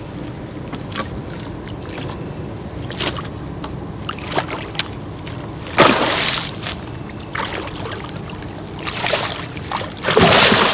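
Hooked grass carp thrashing at the surface as it is played in, throwing up loud splashes about six seconds in and again near the end, with smaller splashes between.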